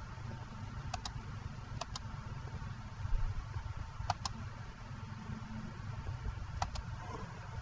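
Computer mouse double-clicking four times, a few seconds apart, over a low steady hum.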